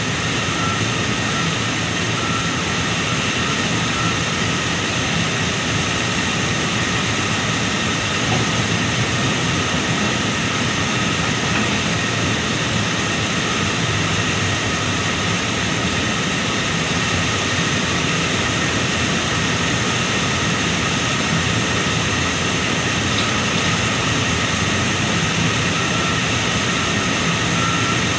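Backhoe loader's diesel engine running at a steady throttle as it works, an unbroken drone with a few steady high whines.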